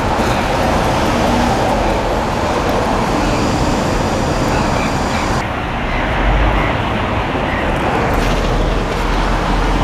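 Steady road traffic noise from a busy street, with no clear single event standing out. The higher hiss drops away abruptly about five and a half seconds in.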